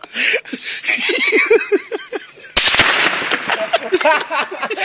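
A single sharp rifle shot about two and a half seconds in, a sniper's round fired at a dummy held up above cover, with men laughing before and after it.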